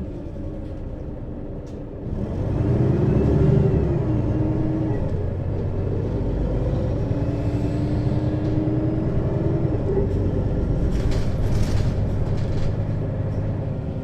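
Mercedes-Benz Citaro city bus engine with its ZF Ecomat 6HP-592 C automatic gearbox, heard from above the engine: the engine picks up load about two seconds in, its pitch rising and falling as the bus pulls away, then runs steadily under load. A brief hiss sounds around eleven seconds in.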